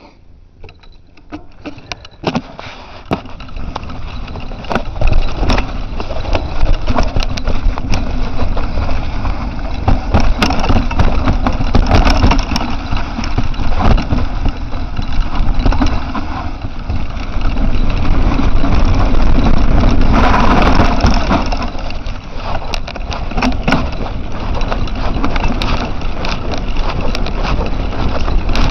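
Mountain bike riding down a rough forest trail: a dense rumble of tyres and wind noise with frequent sharp rattles and knocks as the bike goes over roots and rocks. The noise builds over the first few seconds as the bike gets going, then stays loud.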